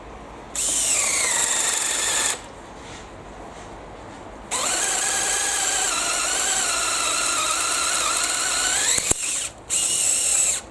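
Makita XFD01 18V cordless drill driving an 18mm auger bit, its motor whining in bursts. The first short burst falls in pitch, then comes a long, steadier run that ends with a sharp click, and a brief burst follows near the end.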